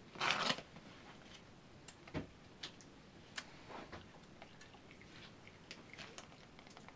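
Paper envelope rustling and crinkling as a java macaque handles and mouths it. There is one short, louder crinkle about a quarter second in, followed by scattered soft crinkles and light taps of paper on the sink.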